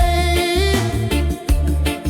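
Reggae music: a heavy bass and drum beat with a held melody line over it.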